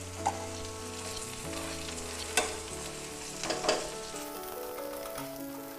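Bread and egg frying in ghee on a tawa over a low flame: a steady sizzle with a few sharp clicks. Soft background music of held notes plays underneath.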